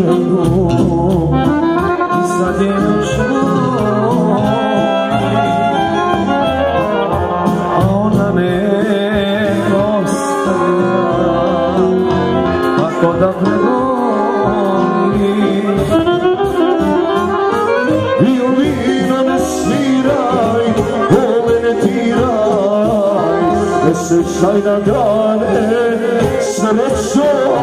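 Live Balkan folk band music amplified through PA speakers: a violin playing the melody over accompaniment, with a male singer on a microphone.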